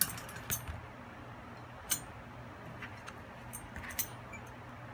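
Light metallic clinks and taps as the steel wire frame and steel flip targets of an airgun target stand are handled and fitted together on a table: about half a dozen short, sharp clinks, the loudest about two seconds and four seconds in.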